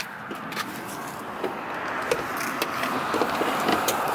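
A car passing on the road, its noise growing steadily louder, with a few light clicks from handling the car door.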